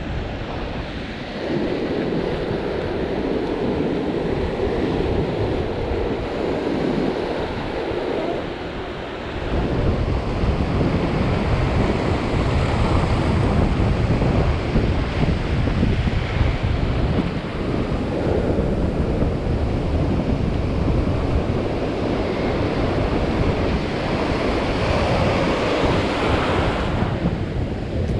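Ocean surf breaking and washing over a rocky beach, with wind buffeting the microphone. The surf gets louder and heavier about ten seconds in.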